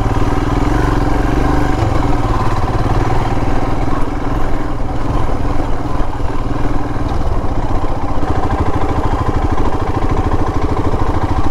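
Motorcycle engine running steadily, its rapid firing pulses even throughout.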